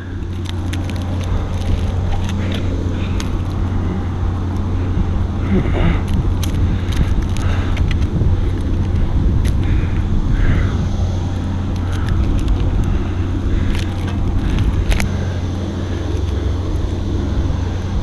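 An engine running steadily with an even low hum, with scattered short clicks and scrapes over it.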